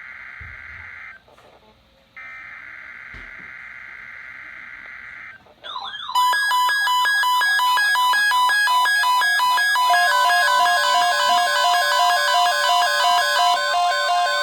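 NOAA Weather Radio SAME digital header bursts, a buzzing data tone, sound twice with a short gap. About five and a half seconds in, several weather radios' alarms go off together in a loud mix of warbling and beeping tones. At about ten seconds the broadcast's steady single-pitch warning alarm tone joins them, activating the radios for a severe thunderstorm watch.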